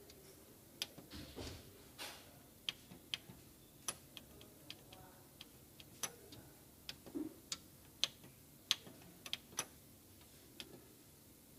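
Printer control-panel buttons clicking under a fingertip, the arrow keys and OK key pressed one at a time: about twenty sharp clicks in irregular runs, with a few duller taps among them.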